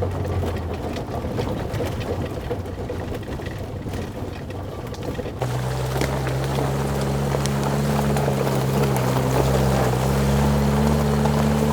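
A motor vehicle's engine running steadily on the move. About five seconds in the sound changes abruptly to a louder, steady pitched drone.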